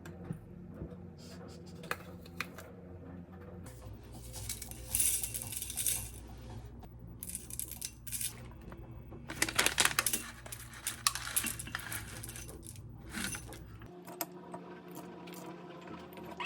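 Dishes and metal utensils clinking and clattering in irregular bursts over a steady low hum, which stops near the end.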